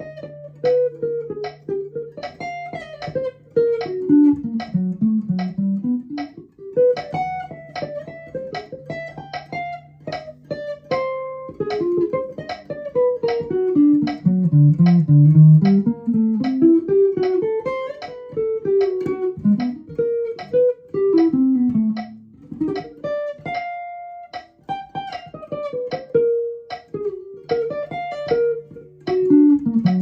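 Archtop hollow-body guitar played in quick single-note jazz lines, the runs climbing and falling in pitch. A low steady tone sits underneath for roughly the first eleven seconds and again near the end.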